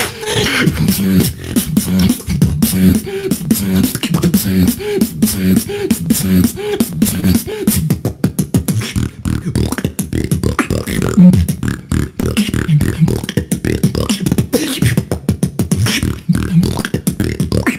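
Solo beatboxing over an online voice call: fast kick, snare and click sounds in a steady rhythm. A hummed bass line bends up and down in pitch through the first seven seconds or so, then the routine turns to denser percussion.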